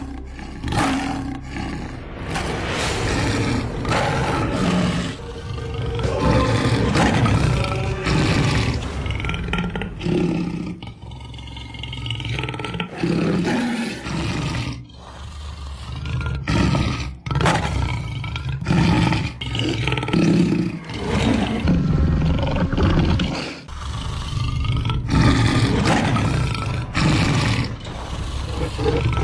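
Lion growling and roaring in a long series of deep growls, broken by brief pauses.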